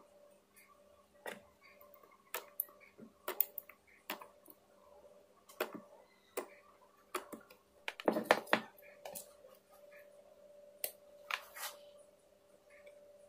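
Irregular sharp clicks and light knocks of small hard objects being handled, with a denser run of them about eight seconds in, over a faint steady hum.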